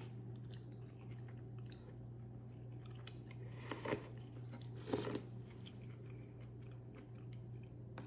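Close-miked chewing and biting of food, with two louder crunchy bites about four and five seconds in.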